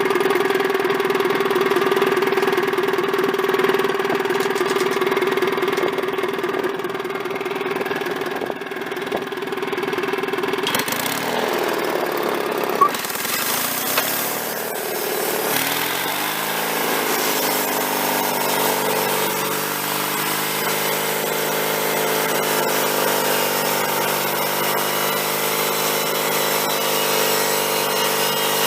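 Sawmill engine running steadily; about a third of the way in its pitch dips and swings for a few seconds, then settles into a new steady run, with two sharp knocks in between.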